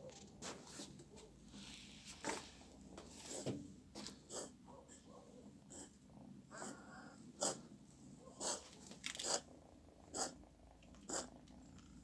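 A cat coughing and sneezing in a series of short, noisy bursts at irregular intervals, the strongest in the second half. The owner wonders whether something is caught in its throat or whether it is ill.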